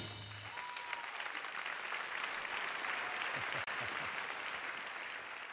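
Theatre audience applauding steadily at the end of a song, as the music's last low note dies away in the first half second.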